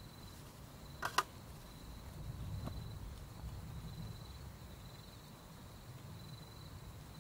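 Campfire crackling: two sharp pops about a second in and a fainter one a little later, over a low steady rumble. A faint, steady, high insect trill runs underneath.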